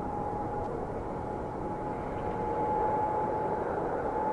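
Twin-engine jetliner's turbofan engines running at high power on the takeoff roll: a steady roar with a high whine through it, growing slightly louder.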